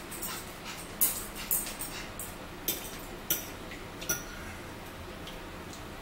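Eating sounds: about six short, sharp clicks and smacks in the first four seconds, as a meal is eaten by hand from a plate.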